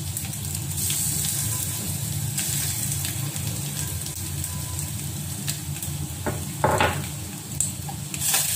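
Tempering of seasoning seeds, dried red chillies and curry leaves sizzling in hot oil in a small steel pot, with small pops. A coarsely pounded pepper, cumin and shallot paste goes into the pot and a steel spoon stirs it. There is a short, louder scrape about two-thirds of the way in.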